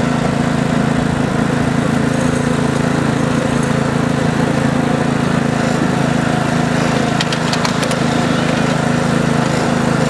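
A small engine running steadily, with a brief run of clicks about seven seconds in.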